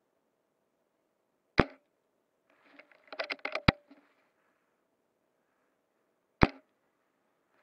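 Custom SRS G-Spec airsoft sniper rifle, a spring-powered bolt-action, firing a sharp shot about a second and a half in. A quick run of clicks and rattles follows as the bolt is worked, then a second shot near the end.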